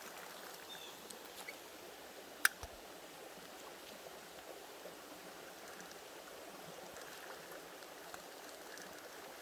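Creek water flowing steadily, with one sharp click about two and a half seconds in.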